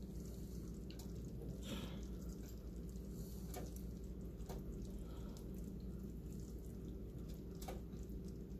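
Metal tongs lifting saucy beef and broccoli out of a cast iron Dutch oven, with a few light clicks and wet drips, over a steady low hum.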